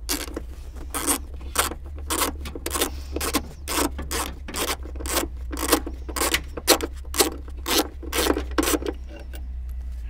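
Hand ratchet with a 10 mm socket clicking as it backs out the top bolt of a seat belt retractor, about three clicks a second in a steady rhythm that stops about a second before the end as the bolt comes loose.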